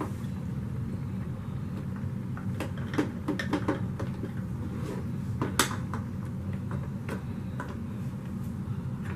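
Hard plastic clicks and knocks from handling an upright vacuum: a cluster about three seconds in and a sharper knock a little past five seconds, over a steady low hum.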